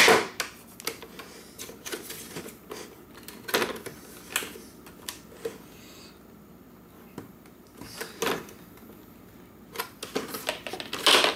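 Plastic clicks, knocks and snaps from the glossy top faceplate of an iRobot Roomba 700-series vacuum being worked off its latches by hand. The clicks are scattered and irregular, with a few louder snaps, one of them just before the end.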